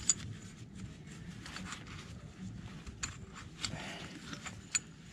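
Scattered faint metallic clinks of a heavy steel tire chain's links as the chain is gripped and strained against a tractor tire.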